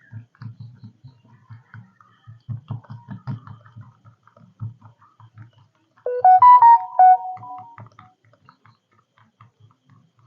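A short electronic keyboard-like melody of a few stepped notes, lasting under two seconds, sounds about six seconds in. Quick runs of soft low thumps go on through most of the rest.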